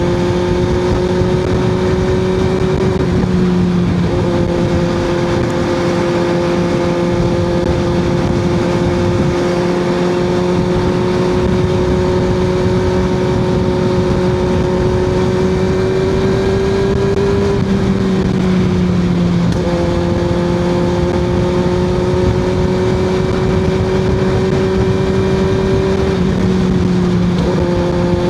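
Kawasaki ZX6R 636's inline-four running through an M4 exhaust with the Q3 Stage 2 baffle installed, cruising at a steady engine speed. The engine note holds mostly steady, with a few brief shifts in pitch.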